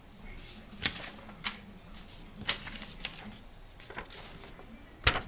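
Paper sheets rustling and crackling as they are handled and swapped, in a string of irregular sharp crinkles, the loudest near the end.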